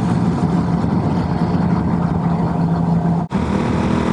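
Motorcycle engine running at a steady cruise, with wind and road noise. The sound cuts out for an instant about three seconds in.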